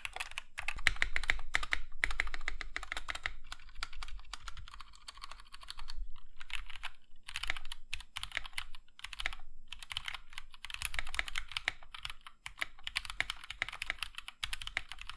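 Rapid typing on a stock budget 60% mechanical keyboard, dense runs of clacking keystrokes in bursts with short pauses between them.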